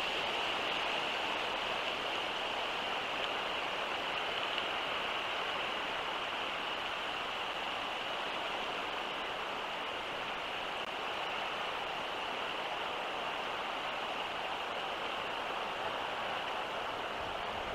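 Steady, even outdoor hiss with no distinct events, strongest in a high band.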